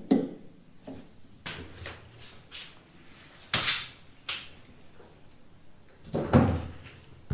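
Short knocks and scuffs of handling a fridge while switching it on, a few separate ones with quiet between; the sharpest comes about three and a half seconds in and a heavier, deeper thump about six seconds in.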